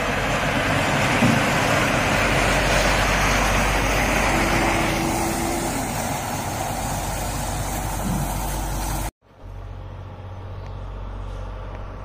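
Semi truck pulling an empty multi-axle lowboy trailer driving past at close range: diesel engine running and tyres rolling, loud and steady. About nine seconds in, the sound cuts off abruptly to much quieter road ambience with a faint distant engine hum.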